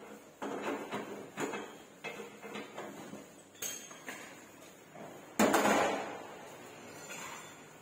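Irregular knocks and clanks of hard objects, most likely metal parts and tools being handled and struck during car restoration work. There are about eight of them, with the loudest about five and a half seconds in, ringing on briefly.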